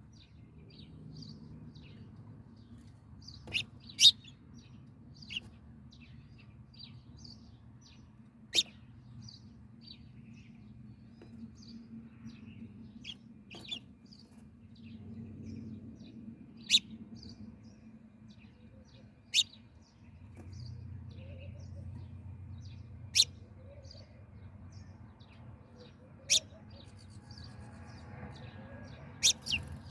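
Small birds chirping in short, scattered high chirps, with a sharp click every few seconds that is louder than the chirps, over a low steady hum.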